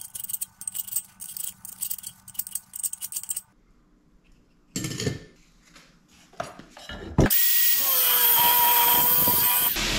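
Light metallic scraping and clicking of a hand tool against a steel tube, then about seven seconds in a power cutting tool starts and runs steadily with a motor whine, cutting through the steel tube and throwing sparks.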